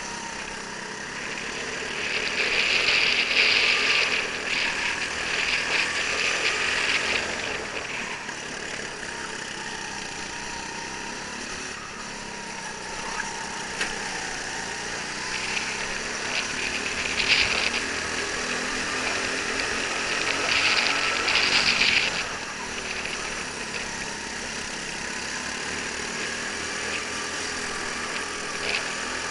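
Onboard sound of a rental go-kart at racing speed: its small engine running and rising and falling in pitch, with a loud rushing hiss in two stretches, a few seconds in and again about two-thirds through, among other karts close by.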